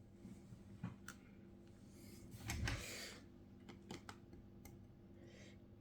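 Faint small clicks and taps of hand tools on a phone's parts during disassembly, with a brief louder rustle about two and a half seconds in.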